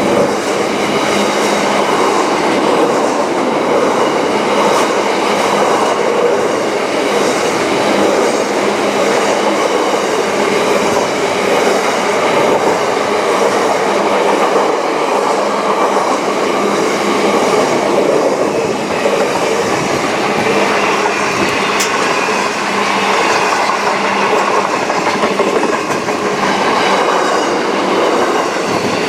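A train's cars rolling past on the rails, loud and steady throughout.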